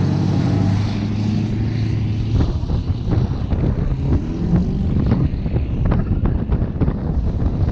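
Vehicle engine running steadily while driving. About two and a half seconds in, the steady drone gives way to an uneven rumble with crackling from wind buffeting the microphone.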